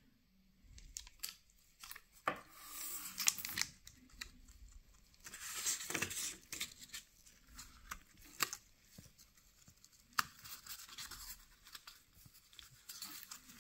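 Rustling and crinkling of plastic and paper watch packaging being handled, in several short bursts, with a few light taps and knocks as the wrapped watch is lifted from its cardboard box and set down.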